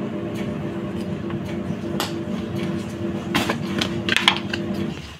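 A steady machine hum with a few fixed tones, one of them pulsing evenly, with light clinks and taps over it about two seconds in and again near the end; the hum cuts off suddenly just before the end.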